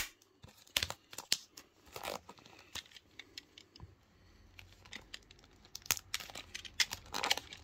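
Plastic and paper parcel packaging being handled and pulled open by hand: scattered crinkling rustles and sharp crackles, with a loud crackle at the start and a busier spell of rustling about six to seven seconds in.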